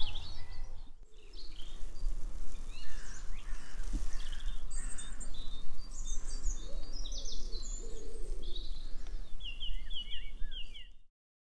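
Coastal outdoor ambience: birds chirping and calling over a low steady rumble, with a quick run of repeated chirps near the end. The sound cuts off suddenly just before the end.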